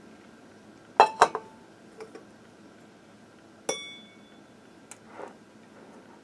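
A stainless steel funnel knocking and clinking against the rim of a glass mason jar as it is handled and lifted off: two sharp knocks about a second in, then a single ringing clink near the middle, with a few lighter ticks.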